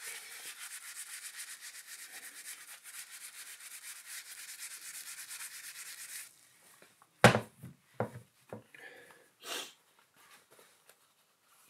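A soapy Brillo pad scrubbing black brake-pad marks off the rim of a white plastic Skyway Tuff 2 BMX wheel, in quick, rhythmic back-and-forth strokes. The scrubbing stops about six seconds in. A sharp knock follows, the loudest sound, then a few lighter knocks and a brief rustle.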